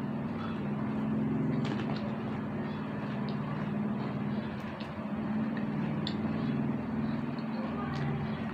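A steady low mechanical hum, like a motor running, with a few faint, short crisp clicks of chicharon being bitten and chewed.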